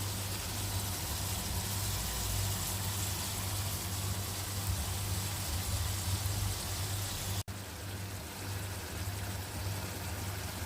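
Chicken jalfrezi cooking in its pan with water on a stove flame: a steady hiss over a low hum, broken by a momentary dropout about seven seconds in.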